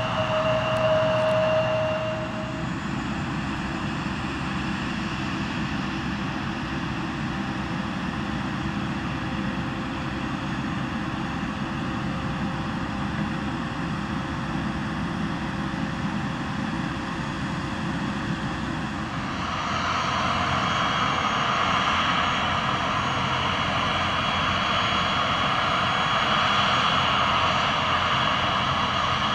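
Boeing 767-300ER jet engines running on the ground: a steady rumble with a whine. About two-thirds of the way through it grows louder, and a higher whine comes in.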